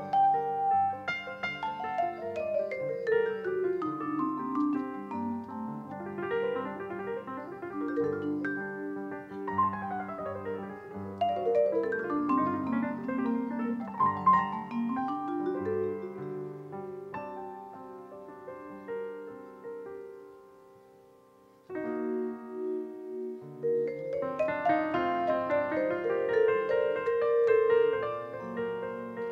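Vibraphone and grand piano playing a jazz duet, with long runs sweeping down and back up. About two-thirds through the music fades almost to nothing, then both instruments come back in.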